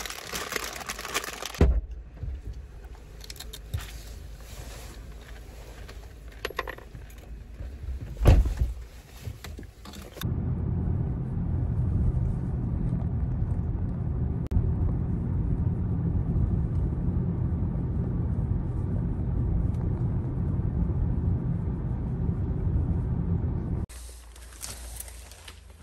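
A car heard from inside while driving: a steady low road and engine rumble. Before it there is some jingling, like keys, and two heavy thuds.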